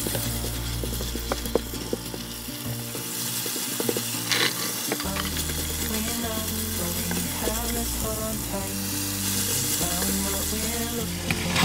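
Chicken and vegetables (cabbage, carrot, shallot, chilli) sizzling as they are stir-fried in a nonstick wok, with a black plastic spatula scraping and knocking against the pan in short clicks.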